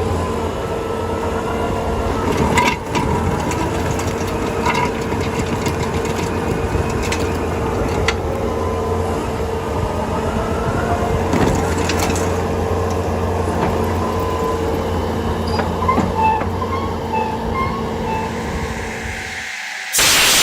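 Bobcat T650 skid-steer running a Stumper 280 stump grinder: a steady engine drone with the cutting wheel grinding wood, broken by scattered sharp knocks and cracks. Near the end the sound cuts out abruptly and a loud, even hiss begins.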